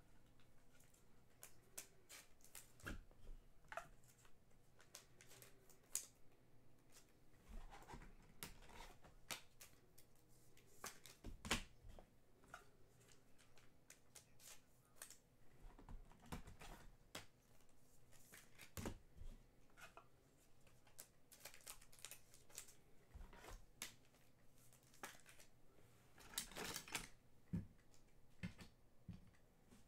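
Faint, irregular clicks and taps of hands handling trading cards and hard plastic card holders, with a louder cluster of clicks near the end as a cased card is set into its stand.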